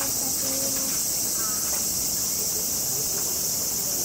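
Steady high-pitched shrill of cicadas, a dense unbroken insect chorus of late summer.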